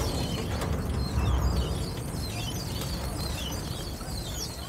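Outdoor background: a steady low rumble, a little louder about a second in, with many short high chirps over it.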